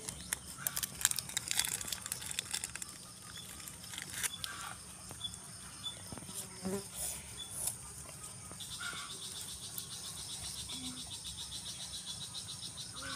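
Steady high insect buzz, with scattered rustles and clicks in the first couple of seconds as the vines are handled during picking. About two-thirds through, a fast, even insect trill starts and carries on.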